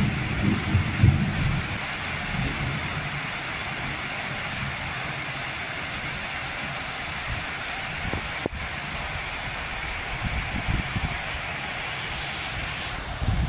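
Steady rain falling, an even hiss, with a low rumble of thunder dying away over the first couple of seconds.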